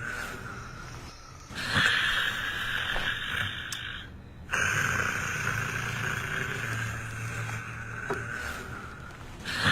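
A person snoring: long hissing breaths that start abruptly every few seconds, one of them with a low rattling buzz in the throat lasting about a second.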